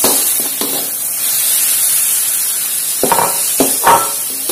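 Chicken pieces sizzling in a metal wok with spice paste, basil and spring onion, stir-fried with a metal spatula that scrapes and clinks against the pan. The sizzle hisses steadily, with a few scraping strokes at the start and a quicker run of them about three to four seconds in.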